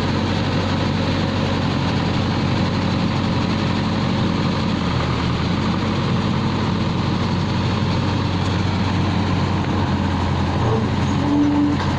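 Backhoe loader's diesel engine running steadily, with a brief higher tone just before the end.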